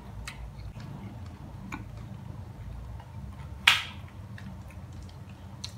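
Close-miked eating sounds: small scattered mouth clicks and smacks while chewing lamb and rice eaten by hand, with one louder, sharp noise about two-thirds of the way in.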